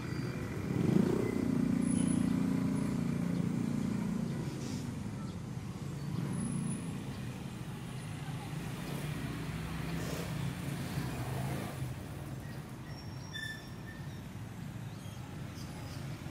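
Road traffic: a motor vehicle's engine rises in pitch about a second in and runs loud for a few seconds, then fades to a lower, steady engine hum under the background street noise.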